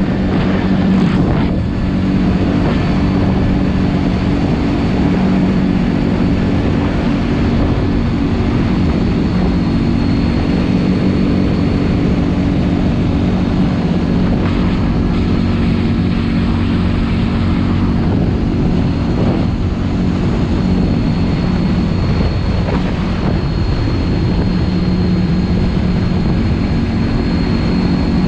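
2021 CFMOTO 450L ATV's single-cylinder four-stroke engine running steadily at road cruising speed, with a thin high whine over it.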